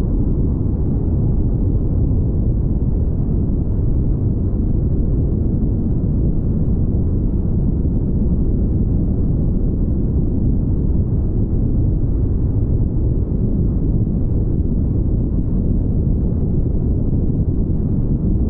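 Steady low rumble of a car driving at highway speed: wind buffeting the camera's microphone along with tyre and road noise, unchanging throughout.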